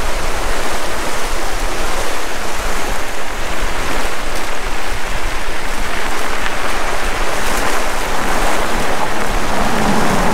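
Steady, loud rushing noise of wind buffeting the camera microphone while riding, mixed with mountain bike tyres rolling on a gravel road.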